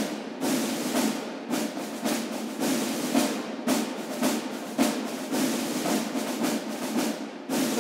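Background music in a drums-only passage: a run of snare-like strokes and rolls with no melody.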